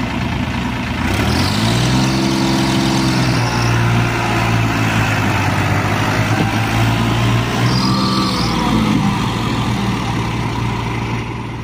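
Tractor diesel engines revving hard under heavy load while pulling a grain-laden trailer stuck in mud. The engine climbs about a second in and holds high, eases and surges again once, then drops back toward idle near the end.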